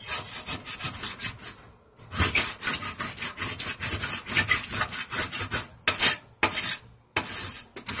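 A small tool scraping and poking at a charred burn spot on a microwave oven's floor, burnt in by a microwaved metal scouring pad: quick rasping strokes with a few brief pauses.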